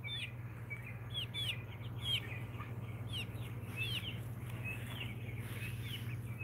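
Young chickens chirping in many short, high, hooked notes, scattered irregularly, over a steady low hum.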